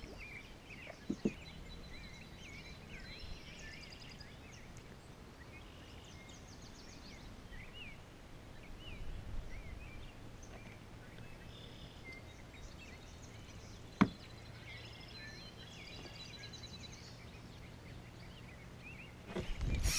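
Faint evening outdoor ambience of scattered birdsong, short chirps and trills over a low steady hum. A couple of soft knocks come about a second in and a single sharp click later on.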